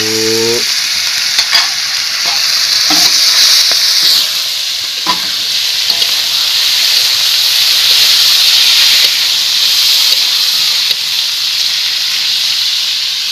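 Boiled squirrel meat sizzling in spice paste in a hot wok as it is stir-fried, with a spatula scraping through it and a few knocks of the spatula against the pan.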